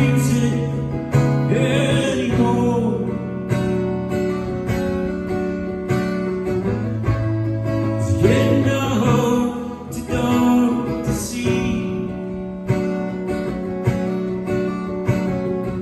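Music: acoustic guitar strumming a steady rhythm over a sustained bass, with a voice singing in stretches.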